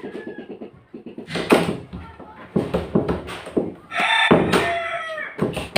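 A wooden door is swung shut several times, giving loud knocks as the newly fitted doorknob's latch catches in the strike plate, after a brief rattle of the latch at the start. A rooster crows about four seconds in.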